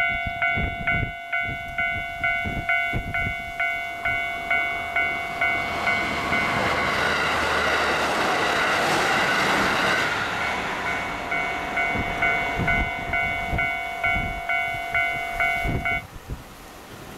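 Japanese level-crossing alarm ringing in a steady repeated electronic ding, about two strikes a second, while a train passes at speed midway, its rushing noise swelling and fading over about four seconds. The alarm cuts off suddenly near the end.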